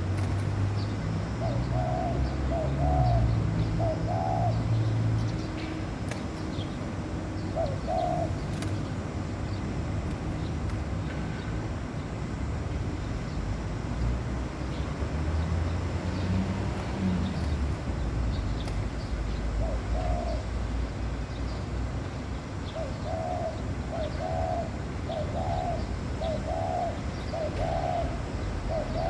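Laughing doves cooing: soft, low coos in short groups, about three together near the start, a couple of single coos in the middle, and a run of about six near the end. A low steady rumble and faint high chirps of small birds lie underneath.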